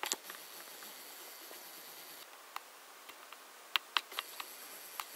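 Faint high-pitched whine of a video camera's zoom motor, running for about two seconds and starting again near the end, with a few sharp handling clicks scattered through.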